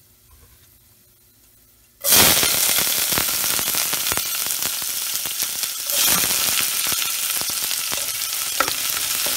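Chopped onion dropped into hot oil in a stainless steel pot: after about two seconds of quiet, a loud sizzle starts suddenly and keeps going steadily. It swells again about six seconds in, and a wooden spatula clicks and scrapes through the onion as it is stirred.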